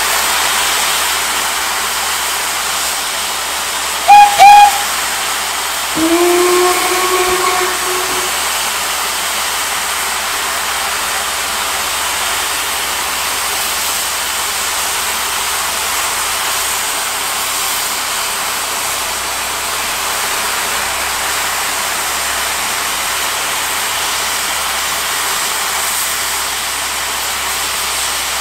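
Steam locomotive standing and hissing steadily. About four seconds in it gives two short high whistle toots, then a lower whistle that swoops up and holds for about two seconds.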